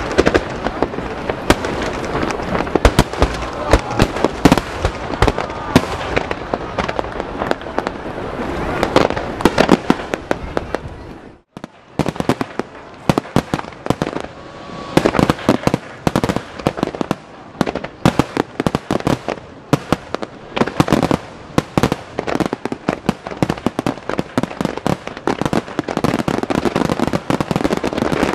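Fireworks finale barrage: starmine shells fired in rapid succession, a continuous run of sharp bursts and booms over steady crackling. About eleven seconds in, the sound drops out for a moment, then the dense bursts resume.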